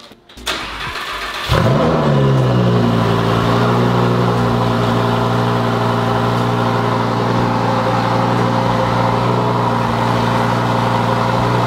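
Lamborghini Huracán Performante's V10 cold-started on its factory exhaust after several days unused: it catches about a second and a half in, its pitch sweeps and then settles, and it idles steadily and loudly.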